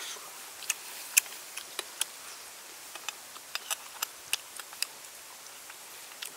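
Eating sounds: a dozen or so sharp, irregular clicks and taps while shrimp and noodles are eaten with bamboo chopsticks and a metal spoon.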